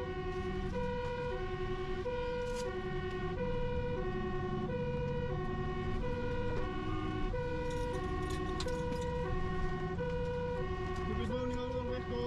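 Fire truck's two-tone siren, alternating evenly between a high and a low note, each held a little over half a second, with the truck's engine and road noise underneath, heard from inside the cab.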